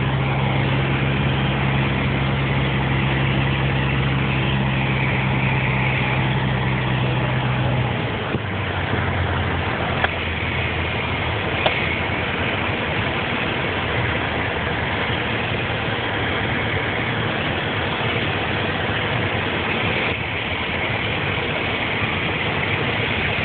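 Light aircraft's piston engine and propeller droning steadily, heard inside the cabin. A strong steady hum in the drone drops away about eight seconds in, leaving a rougher, noisier roar.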